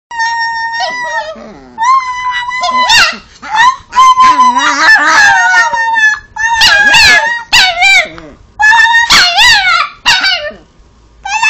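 Chihuahua howling in a run of high, wavering calls that slide up and down in pitch, in about six bouts with short breaks between them: the dog's 'talking'.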